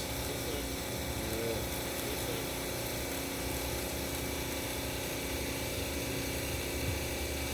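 Steady electrical hum with several fixed tones, running evenly through a pause in the speech.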